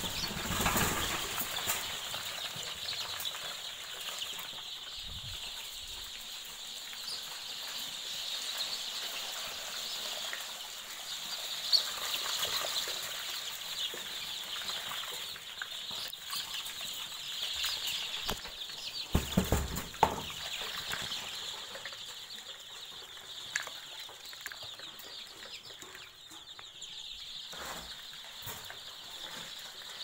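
Month-old Kadaknath chickens flapping their wings and moving about, with scattered knocks and a cluster of them about two-thirds of the way through, over a steady high hiss.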